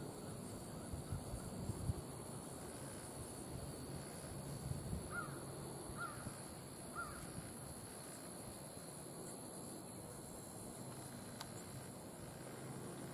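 Quiet outdoor ambience with a steady high insect drone throughout. Three short bird calls come about a second apart midway, and faint hoof thuds of a walking horse fall in the first couple of seconds.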